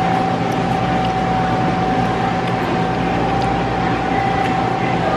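Steady hum of running machinery with a constant high whine over it, unchanging throughout.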